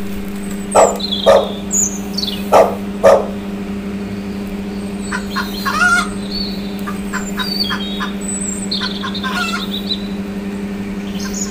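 Birds calling and chirping: four loud sharp calls in the first three seconds, then a run of quick high chirps and short whistles. A steady low hum runs underneath.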